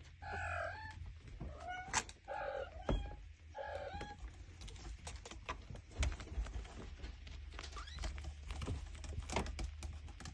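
Five-week-old kittens meowing: three short, high calls in the first four seconds or so. After that, light scuffling and soft knocks from the kittens tussling in their bedding.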